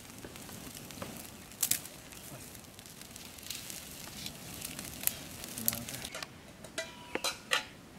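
Wood fire crackling in a makeshift cooking stove: sharp, irregular pops over a soft hiss.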